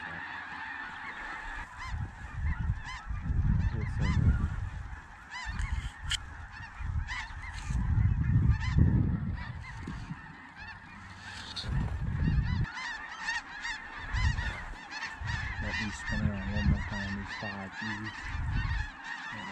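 A large flock of snow geese calling overhead: a dense, unbroken din of many overlapping high honks. Irregular low rumbles come and go through it.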